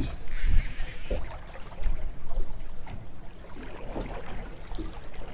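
Open-water boat ambience: water moving against the hull and wind buffeting the microphone, with a brief hiss lasting about a second near the start.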